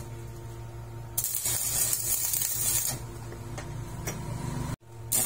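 Stick arc welding on a steel shaft joint: the electrode's arc crackles and hisses for about two seconds, then stops, and strikes again briefly near the end, over a steady low hum. This is a weld bead being laid to fill the joint between two shaft pieces.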